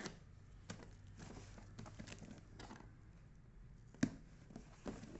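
A blade slitting the packing tape along the seam of a cardboard shipping box: faint scratchy scraping and crackling, with one sharp knock about four seconds in.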